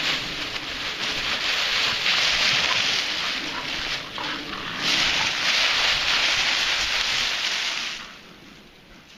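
Dry autumn leaves crunching and rustling loudly as a Rottweiler mix and a speckled dog wrestle in a leaf pile. The noise dips briefly in the middle and fades out near the end as the dogs settle.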